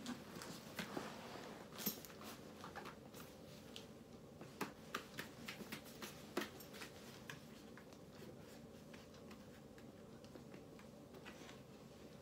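Faint handling sounds of a full-face motorcycle helmet being pulled on and adjusted: scattered soft taps, clicks and rustles, busiest in the first half, with more fiddling at the chin strap near the end.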